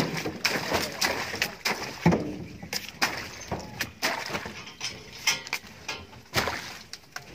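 Irregular knocks, thuds and cracks of green banana bunches being handled: stalks cut and bunches set down and knocked against the metal truck body and wash tank.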